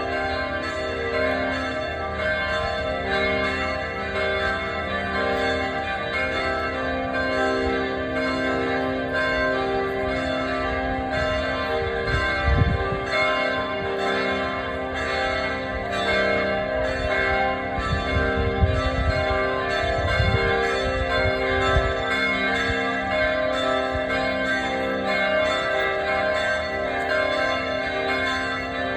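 Church bells ringing continuously, many strokes overlapping into a sustained wash of ringing tones. A few low rumbles sound on the microphone near the middle.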